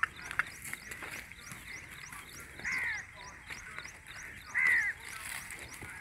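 A crow cawing twice, short harsh calls about two seconds apart, over a fast, even high-pitched ticking in the background.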